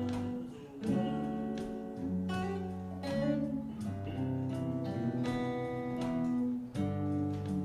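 Guitar playing an instrumental passage of a slow song: chords strummed about once a second and left to ring.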